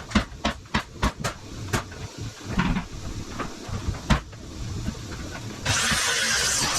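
Building-site work: irregular sharp knocks of nailing and hammering on lumber, then about a second before the end a loud steady rushing noise that starts abruptly.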